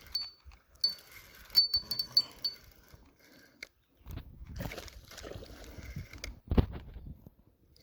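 Small metallic clinks and ticks from fishing tackle as a hooked largemouth bass is reeled in, a run of them in the first couple of seconds. Then rustling and handling noise, with one loud thump about six and a half seconds in.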